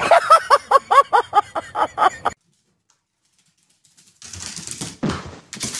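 A small dog yipping rapidly, about five high-pitched yips a second for a little over two seconds, cutting off suddenly. After a short silence, bursts of rustling noise follow.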